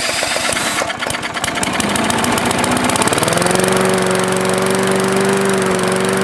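A cordless drill spins over a 3.75 hp Briggs & Stratton lawnmower engine, which has no pull cord. The engine starts firing about a second in, picks up speed, and settles into steady running about three seconds in.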